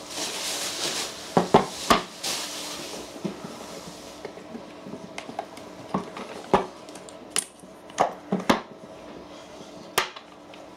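Bubble wrap rustling and crinkling as a wooden gauge-block case is unwrapped, then a series of sharp clicks and knocks as the case is handled, its metal catches snapped open and the lid lifted.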